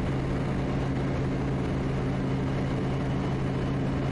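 Quest Kodiak's turboprop engine and propeller running steadily in flight, a constant even drone.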